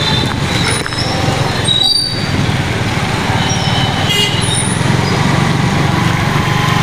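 Motorcycle engine running steadily under the rider, with a constant rush of road noise from riding on the rain-wet street.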